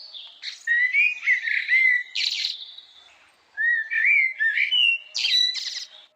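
Blackbird singing: two phrases of rising and falling whistled notes mixed with higher, squeakier notes, with a short break between them about three seconds in.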